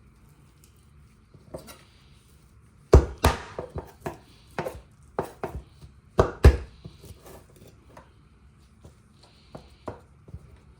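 Kitchen knife chopping a raw quail on a counter: two pairs of hard chops, about three and six seconds in, with lighter knife taps and knocks between them.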